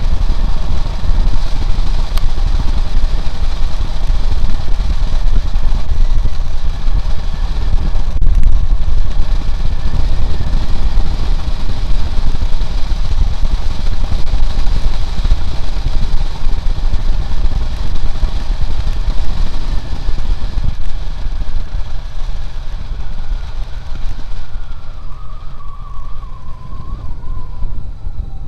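Wind rushing over the microphone of a Honda CB750 motorcycle at road speed, with its inline-four engine running underneath. Near the end the wind eases and the engine note falls as the bike slows.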